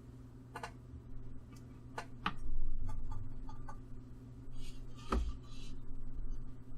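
A few light clicks and taps, four in all, over a steady low hum, with a short hiss about five seconds in.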